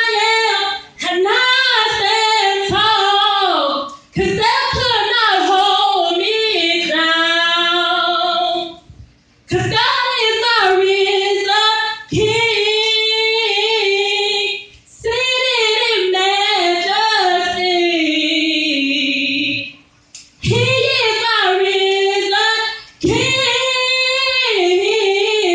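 A woman singing solo and unaccompanied into a handheld microphone: long held notes with vibrato, in phrases broken by short pauses for breath every few seconds.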